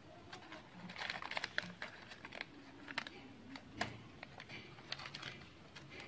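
Faint, scattered small clicks and rustles: a small plastic toy hanger being handled and a doll's shiny dress being worked onto it.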